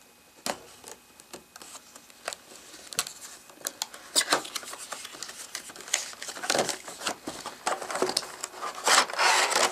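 A box cutter slicing open a small cardboard box, with the cardboard and plastic packaging being handled: scattered clicks, scrapes and rustles, busier about halfway through and ending in a burst of crinkling.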